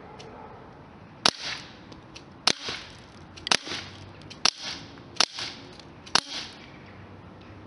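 Beretta APX CO2 BB pistol firing six shots of steel BBs at uneven intervals about a second apart. Each shot is a sharp crack followed a moment later by a softer, drawn-out sound.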